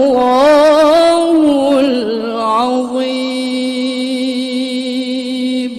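A woman reciting the Qur'an in the melodic competition style (tilawah), through a microphone: quick ornamented turns and wavering pitch for the first half, then one long held note from about three seconds in that stops near the end.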